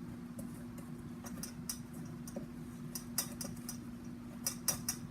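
A spoon stirring cobbler batter in a mixing bowl, knocking against the bowl in irregular clicks, several close together about three seconds in and again near the end, over a steady low hum.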